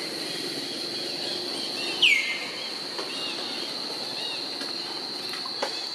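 Steady high-pitched insect drone throughout, with one loud call about two seconds in that falls in pitch and then holds, and a few softer chirps after it.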